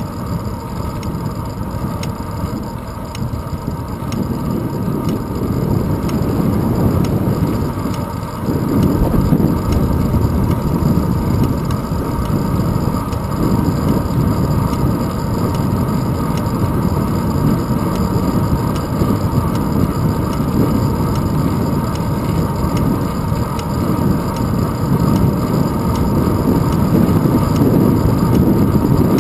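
Wind buffeting and road noise on a handlebar-mounted GoPro on a moving bicycle: a steady low rumble that gets louder about eight seconds in.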